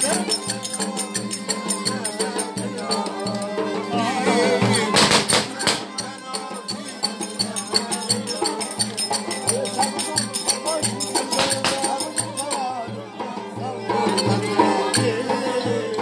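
Live Turkish folk dance music: a bowed fiddle playing a lively melody over a drum beating a steady rhythm.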